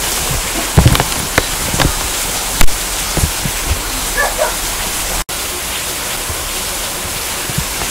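Steady rain falling, an even hiss with scattered sharp taps. The sound cuts out for an instant a little past halfway.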